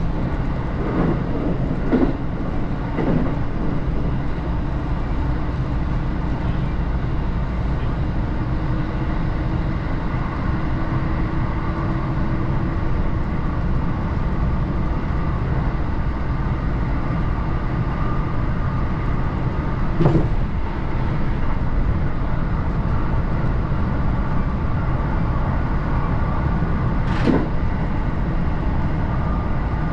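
Electric train running, heard from on board: a steady rumble of wheels on rails with a low hum, broken by a few sharp clicks or knocks, the loudest about 20 seconds in and another near 27 seconds.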